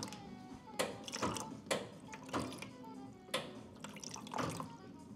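Sharp clicks and knocks about once a second from kitchen things being handled at a counter, such as a kettle and cup, over quiet background music.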